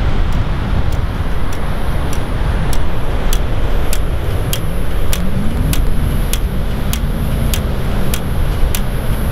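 Wind buffeting the microphone as a loud, steady rumble, with a regular sharp tick a little under twice a second.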